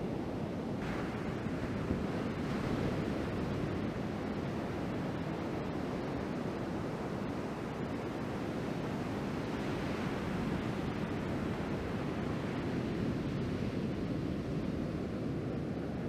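Ocean surf breaking on a sandy beach: a steady rushing wash of waves, swelling louder about a second in and again around ten seconds as whitewater rolls in.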